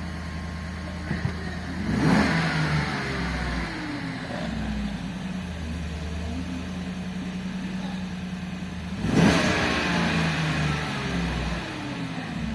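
Car engine idling and revved twice, about two seconds in and again about nine seconds in, each rev falling back to idle. The engine runs again after a new fuel pump assembly replaced a stuck fuel pump motor that had left it cranking without starting.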